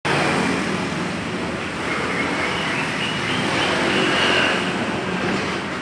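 Steady motor-traffic noise, a continuous rumble with a faint wavering whine above it.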